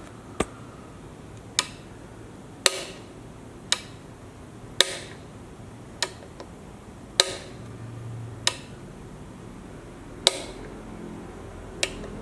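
Electrical power switch being flipped repeatedly, about ten sharp clicks roughly a second apart.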